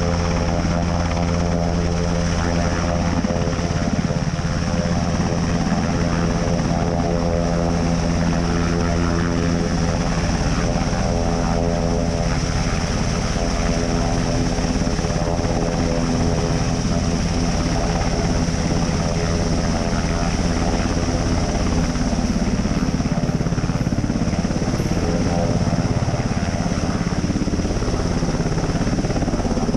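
Sikorsky S-92 coastguard helicopter running steadily with its rotors turning: a loud, even low drone from the rotors and engines, with a steady high turbine whine over it.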